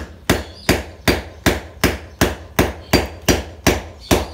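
Small hammer striking a flat-blade screwdriver held against a bicycle chain, a steady run of sharp blows about three a second, trying to drive out a chain pin and split the chain. The chain is a heavy motorcycle-type chain and does not give.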